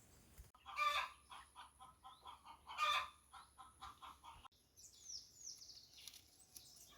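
Chickens clucking: two louder calls, one about a second in and one near three seconds, then a run of short clucks. High falling chirps from a small bird come later.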